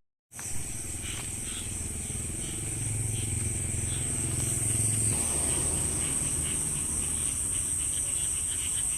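Night chorus of insects and frogs in rice paddies. A steady high-pitched insect trill carries on throughout, under many short, rapidly repeated calls. A low hum swells for a couple of seconds around the middle.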